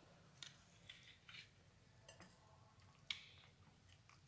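Faint, scattered clicks and light scrapes of a knife and cake server against a plate as a slice of soft custard is cut and lifted, the clearest click about three seconds in.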